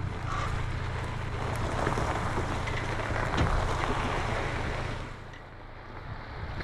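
Boat engine running steadily under a broad rush of wind and water; it dips briefly quieter after about five seconds.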